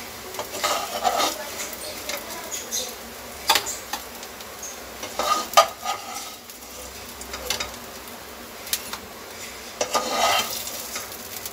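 Kababs sizzling as they shallow-fry in a non-stick pan, while a spatula scrapes and knocks against the pan to lift them out, the loudest knock a little past halfway.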